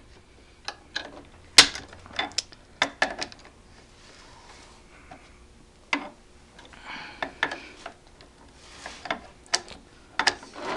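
Barrel nut wrench on an AR-15 barrel nut as the nut is tightened onto the upper receiver: irregular sharp metal clicks and knocks, the loudest about a second and a half in, with short scraping rubs between them as the wrench is taken off and refitted on the nut.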